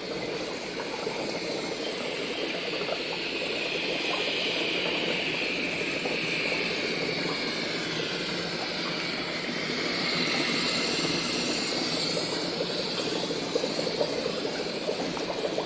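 Sci-fi laboratory ambience sound effect: a steady watery bubbling and hissing, like liquid boiling in lab apparatus, with a high wavering tone that drifts slowly up and down in pitch above it.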